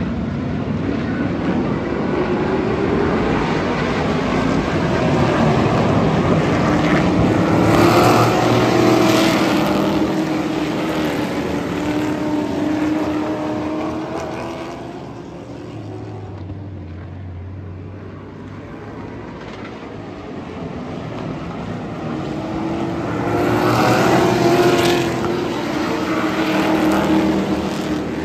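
Hot rod class stock cars racing on a paved oval short track, their engines running at racing speed. The sound swells loud twice, about eight and twenty-four seconds in as the pack comes past, and fades in between while they are on the far side of the track.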